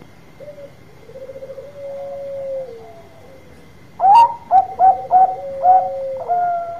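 Zebra dove (perkutut Bangkok) singing: a soft fluttering trill and a drawn-out coo that falls away at the end, then about four seconds in a loud run of about six short, clipped coos.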